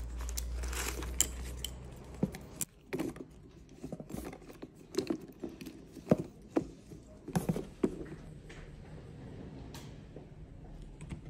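Handling noise as a leather handbag is lifted out of its gift box: rustling of packaging and tissue paper, with scattered soft clicks and taps. A low rumble fills the first two seconds.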